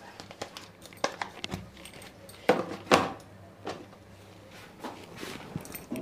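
Kitchen handling sounds: a small spoon clicking and tapping against spice containers and a lidded container being handled, a run of separate knocks, the two loudest about two and a half and three seconds in.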